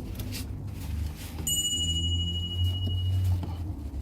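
A single steady electronic chime tone, high-pitched, starting about a second and a half in and held for about two seconds before stopping, over a continuous low rumble.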